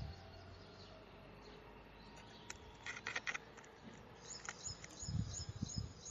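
Small songbirds chirping: a quick cluster of chirps about three seconds in, then a run of short, high, repeated notes, a few a second, from about four seconds on. Low rumbling noise comes in near the end.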